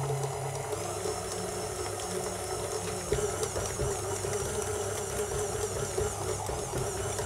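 KitchenAid Artisan stand mixer running at low speed, its dough hook kneading wet pizza dough in the steel bowl: a steady motor hum.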